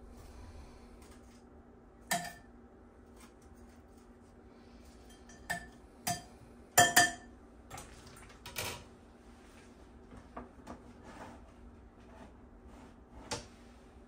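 Metal tongs clinking against an air fryer basket and dishes as pieces of chicken are lifted out and set down: scattered sharp clinks, the loudest pair about seven seconds in, over a low steady hum.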